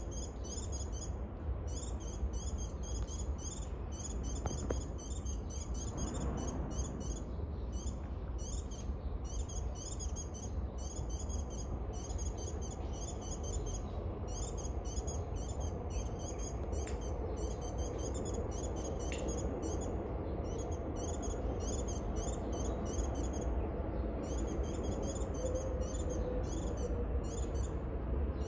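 A dense, high-pitched chorus of rapid chirping phrases that repeat with short gaps, over a steady low rumble.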